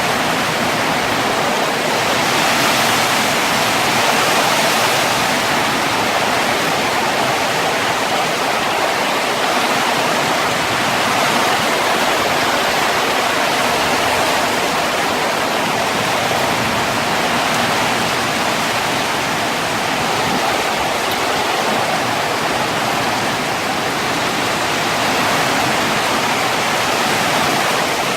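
Heavy rain pouring in a steady, dense hiss, driven by strong wind, swelling slightly a few seconds in.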